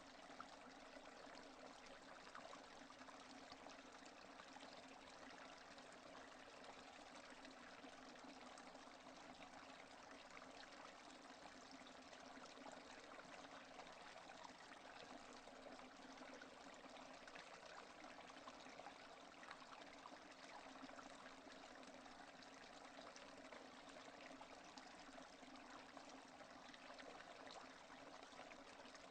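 Steady rain falling, faint and even, with many small drops pattering and no thunder.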